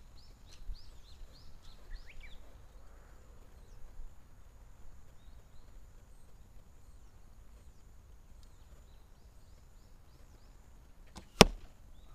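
An arrow striking the target boss: a single sharp impact near the end, missing the balloons. Birds chirp faintly in the first couple of seconds.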